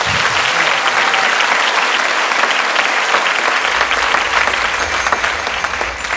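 Large theatre audience applauding steadily, easing off slightly near the end, with a low rumble joining partway through.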